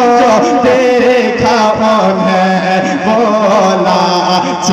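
A male voice singing a naat, an Urdu devotional poem in praise of the Prophet, into a microphone, drawing out long wavering, ornamented notes.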